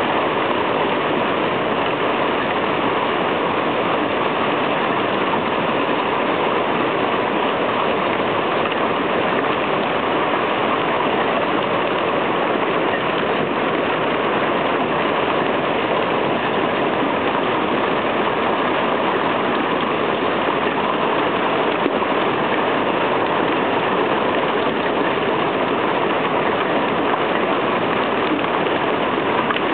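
Hail and heavy rain pelting down in a thunderstorm, a dense, steady hiss of countless impacts on the ground and roofs that stays at the same level throughout.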